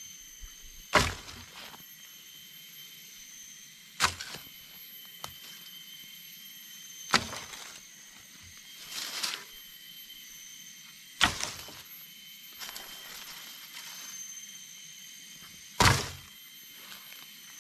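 Wooden poles thrown one at a time onto a pile of cut saplings on the forest floor, each landing with a sharp thunk, six times at roughly three-second intervals.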